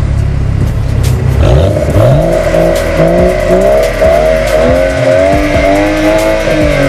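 Exhaust of a BMW F10 5 Series fitted with an aftermarket valve-controlled exhaust. The engine idles, then from about a second and a half in it is free-revved over and over, the revs rising and dropping, with a longer climb and fall near the end.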